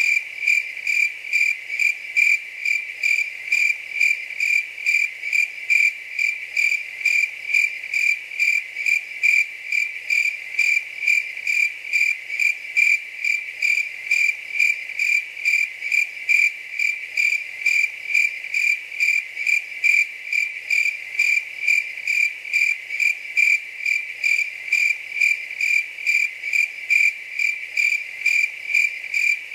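A cricket chirping: loud, high-pitched chirps repeated at a steady, even rate of about two a second.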